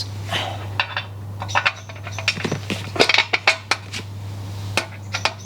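Small metal clinks and clicks of a steel bolt being picked up and fitted through an aluminium roof-rack side profile, a cluster of quick taps about three seconds in.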